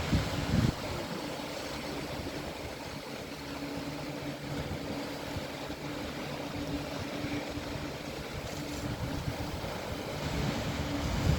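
Sea waves washing, with a steady engine hum, typical of a passing boat, and wind buffeting the microphone at the start and again near the end.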